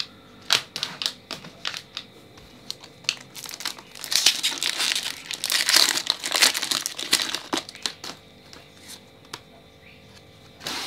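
Foil Pokémon booster pack wrapper crinkling as it is opened and the cards are pulled out, loudest from about four seconds in for a few seconds. Scattered sharp clicks of cards and packs being handled come before and after it.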